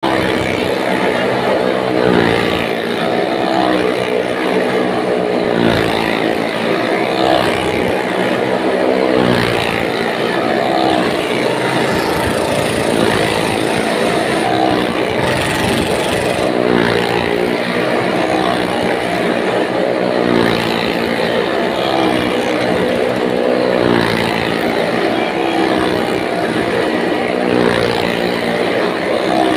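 Motorcycle and car engines racing round the wooden wall of a well of death, their note rising and falling over and over, about every two seconds.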